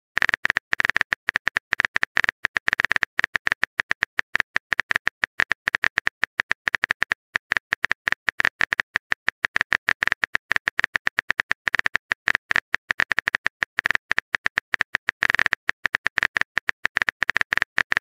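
Rapid keyboard tap clicks of a phone texting app as a message is typed, several sharp clicks a second in an uneven run.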